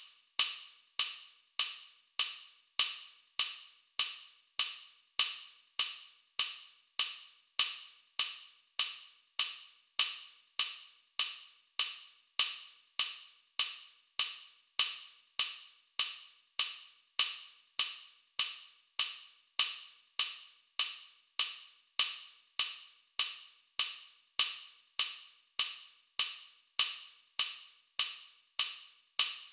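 Metronome click track at 100 beats per minute: a short, sharp click every 0.6 seconds, steady and unchanging.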